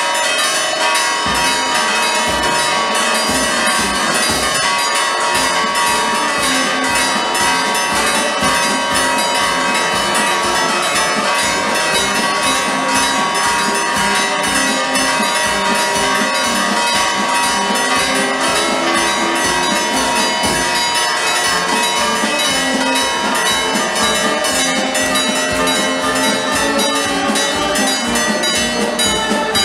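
Church bells ringing continuously in a fast, overlapping festive peal.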